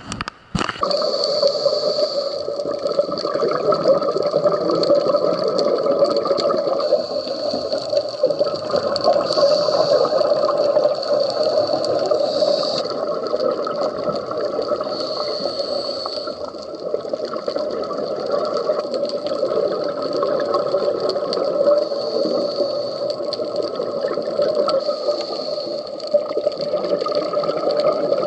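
Underwater sound picked up by a camera in a waterproof housing: a steady, muffled rush of water with some gurgling. It starts abruptly after a click about half a second in.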